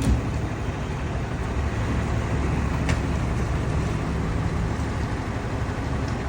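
Steady low hum of a large vehicle engine running, with street traffic noise.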